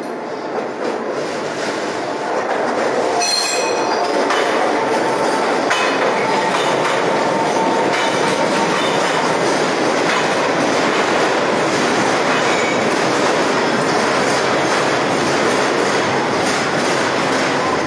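Scarborough RT train (UTDC ICTS Mark I cars) running along the track. It gets louder over the first few seconds and then runs steadily, with a brief high squeal about three seconds in.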